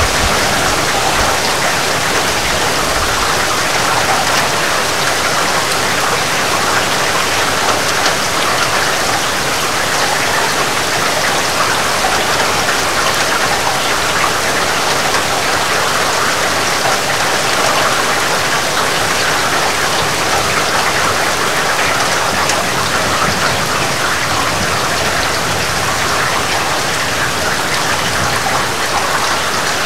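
Heavy rain falling steadily, an even hiss of countless drops that neither builds nor breaks.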